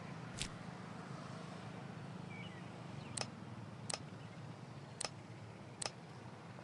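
Five sharp, short clicks at uneven intervals, over a faint steady low hum.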